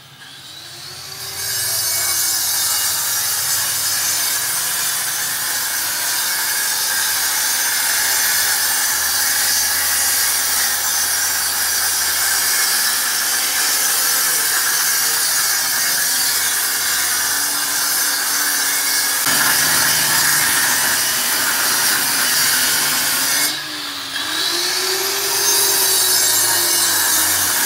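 Handheld electric cutter grinding a groove into a brick-and-plaster wall to take electrical conduit. It is a steady, harsh cutting noise, and the motor's pitch sags under load. About 23 seconds in it briefly eases off, then speeds back up and carries on cutting.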